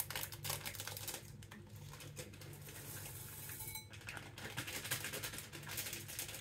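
Kitchen utensil clatter: a spoon clicking and scraping against a bowl, with many small knocks throughout, over a steady low hum.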